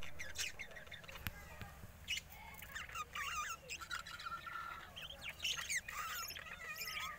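Budgerigars chattering and warbling in quick, wavering chirps, with a single sharp click about a second in.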